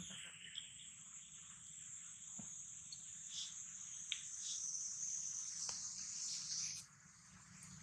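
Insects droning in the forest, a steady high-pitched buzz that cuts off abruptly about seven seconds in, with a few faint ticks.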